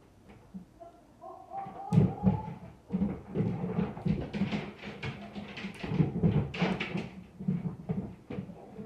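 Irregular thumping and knocking from the apartment upstairs, heard through the ceiling, beginning about two seconds in and going on in uneven clusters. A short high squeal comes just before the thumping starts.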